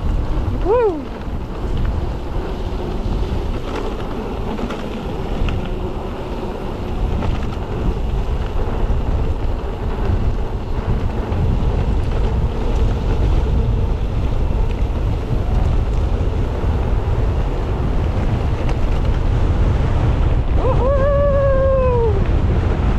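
Wind rushing over an action camera's microphone during a downhill ride on an e-mountain bike: a loud, steady rush. A short whine rises and falls about a second in, and a longer one of about a second and a half comes near the end.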